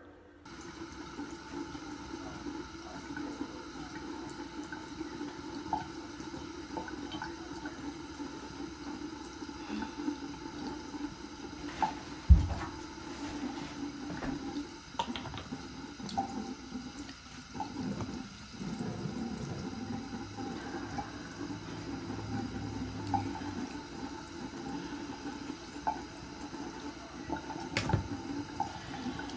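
Water running steadily, with one loud thump about twelve seconds in and a few light clicks.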